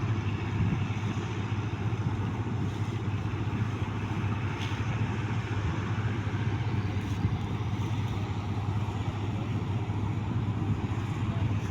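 New Holland 8070 combine harvester's engine running steadily, a constant low drone.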